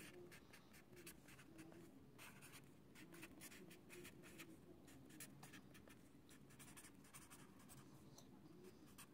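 A marker pen writing on paper on a clipboard: faint, quick strokes, several a second.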